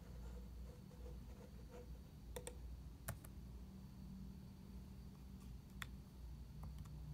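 A handful of separate sharp clicks from laptop keys and trackpad as a line of code is copied and pasted, over a faint steady low hum.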